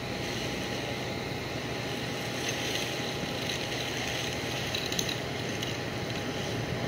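Steady street background of low hum and hiss, with a few light clicks and taps about halfway through and one sharp click near the end.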